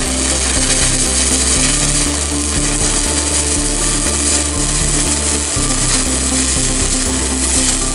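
Stick (MMA) welding arc from a Global Power GP-200A inverter welder, crackling and hissing steadily as the electrode burns along a steel joint.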